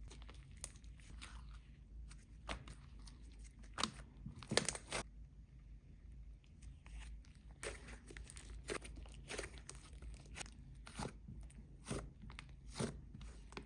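Hands squishing and poking a jelly-base clay slime, giving irregular sticky clicks and crunchy pops. The clicks are loudest about four to five seconds in, with a short lull after.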